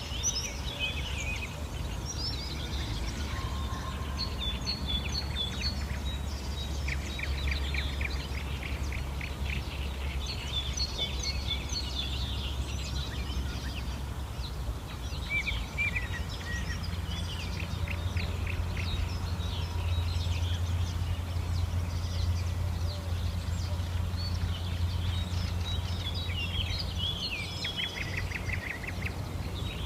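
Several songbirds singing in a mixed chorus of chirps, warbles and rapid trills, over a steady low rumble.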